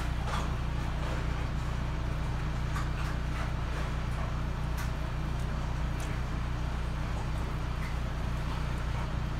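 A steady low hum from something running, with a few faint short clicks and rustles.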